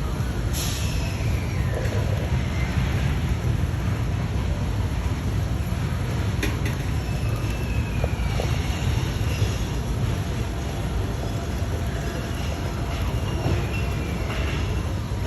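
A steady low rumble, with a few short, falling, high calls from birds now and then over it.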